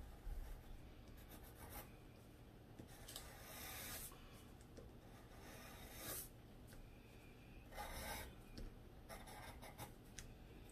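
Graphite pencil sketching on paper: faint rubbing strokes of the lead, with a few longer strokes spaced a couple of seconds apart and small taps between them.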